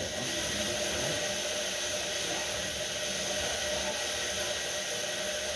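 Steady, even hissing noise with a faint constant hum underneath, from a machine or gas jet running without change.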